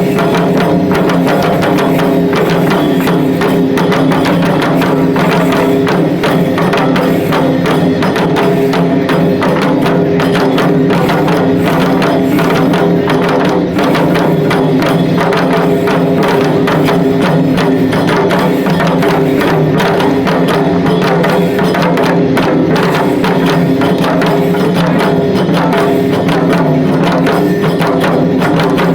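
Shishimai lion-dance accompaniment: a taiko drum and a hand gong struck in a fast, steady, unbroken rhythm.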